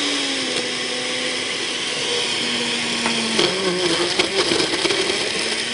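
Cuisinart SmartPower Deluxe blender running on high, its motor spinning the blades through a thick milkshake of frozen fruit and ice cream in the 48-ounce glass jar. The motor's tone is steady at first, then drops lower and turns uneven with scattered clicks about three and a half seconds in.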